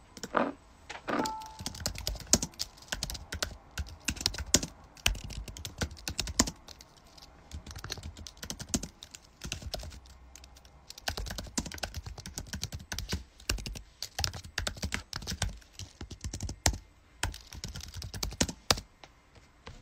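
Typing on a keyboard: a quick, uneven run of key clicks and taps with a few short pauses, stopping about a second before the end.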